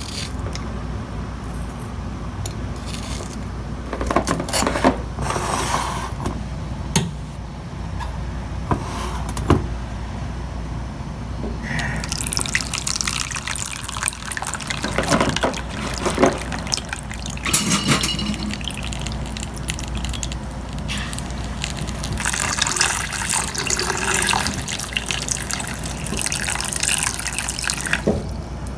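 Kitchen tap running in spurts, water splashing into a bowl as an apple is washed and set to soak in salt water, with a few knocks along the way. The water runs in two longer stretches, one around the middle and one near the end.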